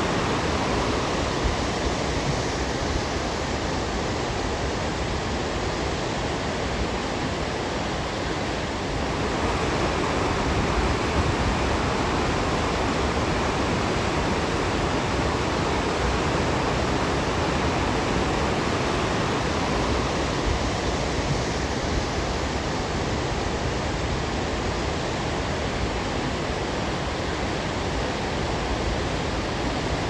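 Stillaguamish River water rushing over rocks and falls: a steady, unbroken rush with its tone shifting slightly about nine seconds in and again around twenty seconds.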